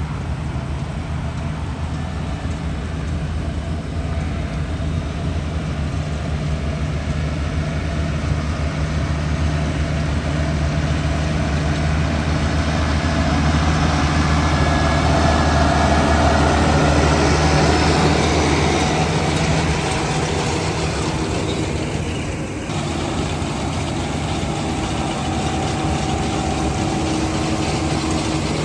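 A vehicle engine running steadily. It grows louder about halfway through and eases off again a few seconds before the end.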